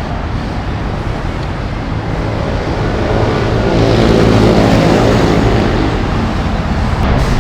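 Suzuki Burgman scooter engine running, its revs rising and getting louder about three to four seconds in, then easing back.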